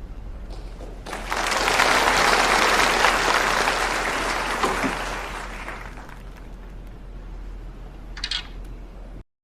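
Audience applauding: the clapping starts about a second in, is loudest for a few seconds, then fades, and the sound cuts off suddenly near the end.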